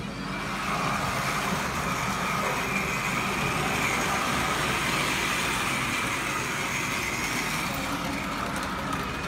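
OO gauge model train running round the layout: a steady whir from the locomotive's electric motor and its wheels on the rails, rising about half a second in.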